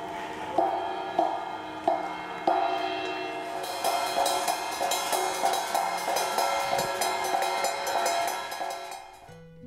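Music: sustained chords whose notes change about every half second, joined from about four seconds in by a jingling high rattle, fading out near the end.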